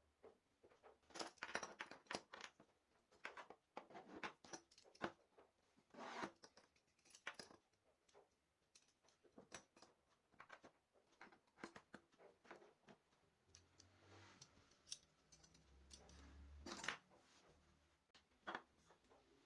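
Irregular clicks, taps and short scrapes of hand work with wooden parts and small tools, with a louder click about 17 seconds in.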